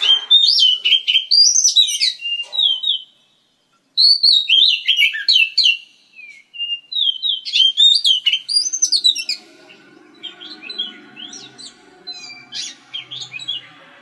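Oriental magpie-robin singing: quick runs of varied, sliding whistles in three loud phrases with short breaks, then softer, scattered notes over a faint low hum in the last few seconds.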